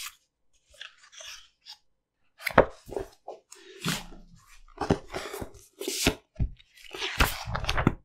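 Pages of a paper book being turned near its end. A few faint rustles come first, then from about two and a half seconds in the page turns come every half second or so at an uneven pace, each a short rustle and flap, some with a dull thud of the book being handled.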